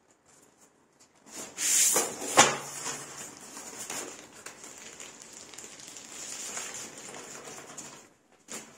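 Baking paper rustling and crinkling as it is peeled off a sheet of puff pastry. It is loudest about two seconds in, with one sharp tap, then goes on as a softer steady rustle.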